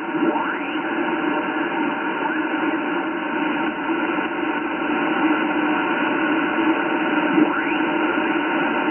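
Yaesu FTdx10 HF transceiver's speaker playing 10-metre upper-sideband receiver audio while the main dial is tuned: steady band hiss with faint carriers, and a couple of mistuned signals sliding in pitch as the dial passes through them.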